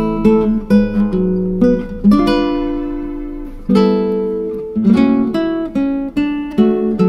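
Background music: an acoustic guitar playing plucked chords that ring and fade.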